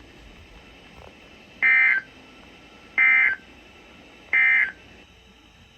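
Emergency Alert System end-of-message data bursts: three short digital chirps about 1.3 s apart, signalling the end of a NOAA Weather Radio severe thunderstorm warning.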